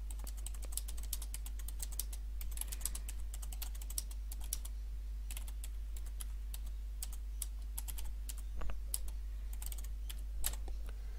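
Typing on a computer keyboard: quick, irregular runs of keystrokes with brief pauses between them, over a steady low hum.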